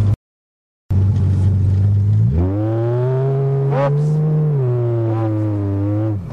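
1982 Toyota Cressida's engine heard from inside the cabin, revving up about two seconds in and held at high revs with a whine, then dropping back just before the end. The sound cuts out completely for under a second near the start.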